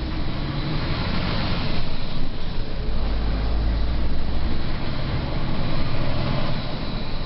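MAN TGA 18.480 truck's straight-six diesel engine running under way, heard from inside the cab together with road noise; the low engine rumble swells for about a second around three seconds in.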